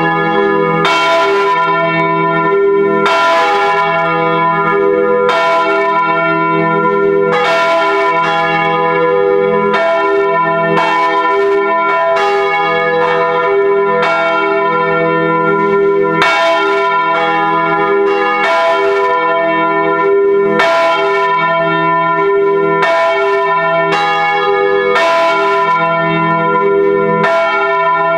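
Full peal of four swinging bronze church bells (e', gis', h' and cis'), recorded up in the bell chamber: clapper strokes from the different bells overlap in an irregular sequence about once a second or faster, over a continuous humming ring.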